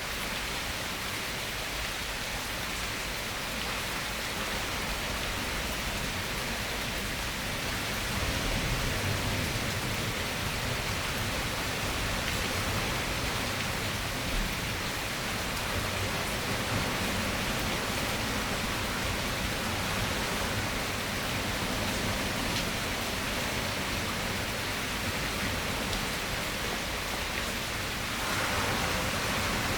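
Steady rain falling, an even hiss with no single drops standing out, growing a little louder about eight seconds in and again near the end.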